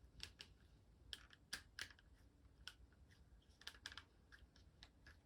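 Faint, irregular clicks and taps of a plastic figure and its display stand being handled as the stand's peg is pushed at the figure's foot, which it will not go fully into.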